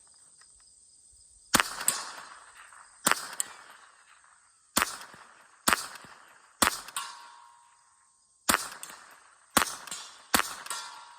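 Winchester Model 77 semi-automatic .22 Long Rifle firing about eight shots at uneven intervals, each a sharp crack with a short fading tail, the really loud action clacking back as it cycles on each shot.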